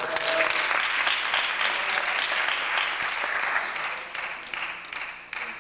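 Audience applauding, starting all at once and thinning to scattered claps over the last second or two.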